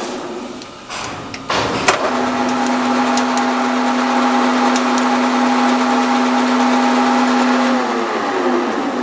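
1IS611V screw-cutting lathe running with a steady mechanical hum. It dies away in the first second or so, comes back up with a sharp click about two seconds in, runs steadily, then falls in pitch as it slows down near the end.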